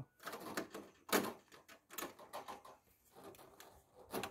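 Orange corrugated plastic electrical conduit being worked into a metal electrical box's connector by hand: irregular plastic clicks and rattles, with a louder click about a second in.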